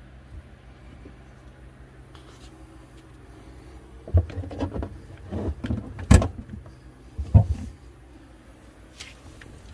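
A run of clunks and knocks from hard objects being handled under a kitchen sink. The first comes about four seconds in, the loudest about six seconds in, and the last a little after seven seconds.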